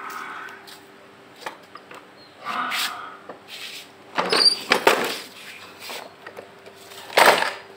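Children's voices calling out in short bursts, loudest about four seconds in and again near the end, with a few light knocks in between.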